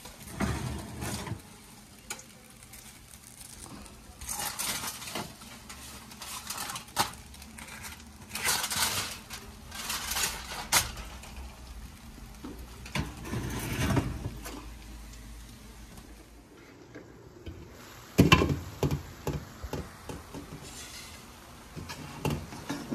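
Aluminium foil crinkling and rustling as it is lifted and handled over trays in an oven, with clinks and clatter of metal trays on the oven rack in irregular bursts. A loud clunk comes about three-quarters of the way through.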